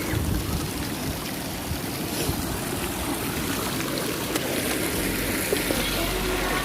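Water of a stream running steadily, a constant rushing and trickling, with a low rumble coming in about five seconds in.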